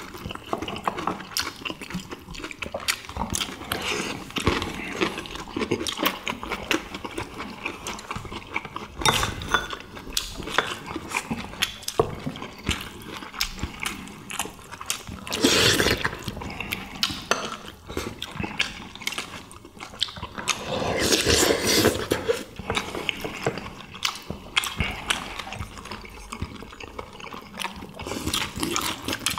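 Close-miked sounds of several people eating: chewing and mouth sounds, with chopsticks and spoons clicking against ceramic bowls and plates. Two louder bursts, around the middle and about two-thirds in, fit slurps of soup from spoons.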